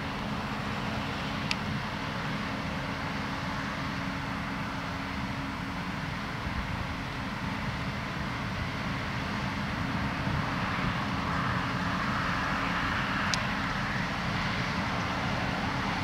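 Case IH combine harvesting soybeans: its diesel engine and threshing machinery run with a steady drone, growing a little louder in the second half as the machine comes closer.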